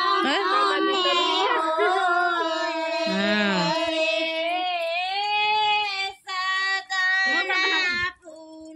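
High-pitched voices singing a melodic song, with brief breaks about six seconds in and a quieter stretch near the end.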